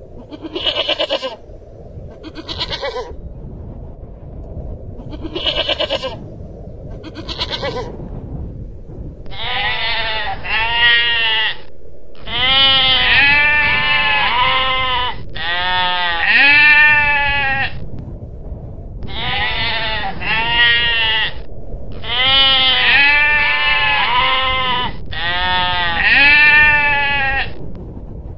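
Long-tailed goral calling: four short, high calls a second or two apart, then a string of bleats that rise and fall in pitch, coming in groups of two to four, over a steady low background noise.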